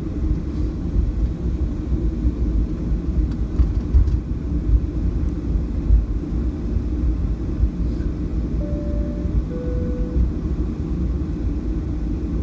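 Steady low cabin rumble of a Boeing 737-700 taxiing with its CFM56-7B engines near idle, heard from inside the cabin. About nine seconds in, a two-tone cabin chime sounds, high then low.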